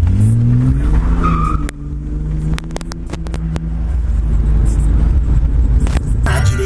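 Chevrolet Omega 4.1's straight-six engine revving up through the exhaust, then the throttle is suddenly lifted and a quick string of sharp exhaust pops follows on the overrun, with one more pop near the end, as the engine settles to a steady run. Music comes in just before the end.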